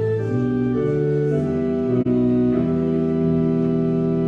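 Church organ playing a hymn in slow, held chords, with a short break between phrases about two seconds in.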